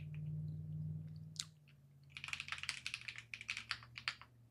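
Typing on a computer keyboard: a few scattered key clicks, then a quick run of keystrokes in the second half.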